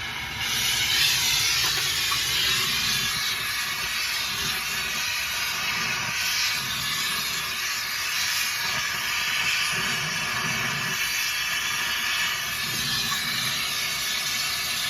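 Oxygen-propane torch burning with a steady hiss and a low uneven rumble, melting silver in a crucible for casting.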